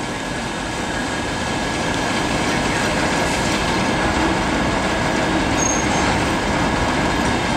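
TEP70BS diesel passenger locomotive's 16-cylinder engine running under power as it pulls a passenger train away, a steady sound that grows slightly louder as it comes closer. A brief high squeal a little past halfway.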